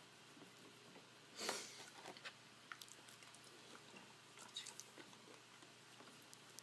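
Near silence with scattered faint clicks and one short, soft breath-like rush about a second and a half in.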